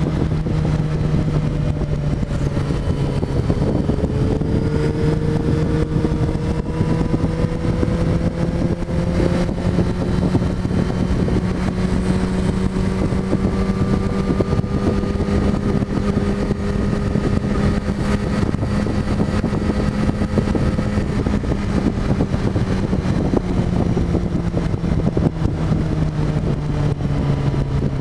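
Yamaha motorcycle engine running at steady highway speed, heard from on the bike with wind rushing over the microphone. The engine note rises slightly through the middle, then drops near the end as the bike slows.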